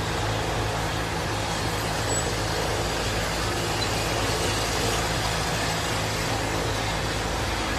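Automatic fabric hemming sewing machine running steadily: a constant mechanical hum and whir without breaks.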